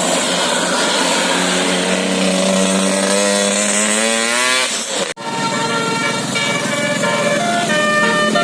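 A pitched sound rises steadily for about three seconds and cuts off suddenly. Then a bus's multi-trumpet telolet musical air horn plays a tune of stepped notes.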